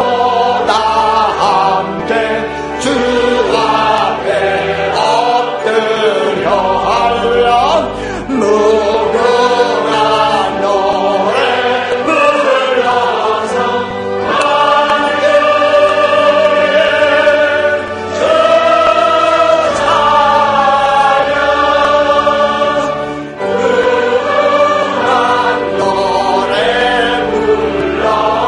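Church congregation singing a hymn together in chorus, with long held notes.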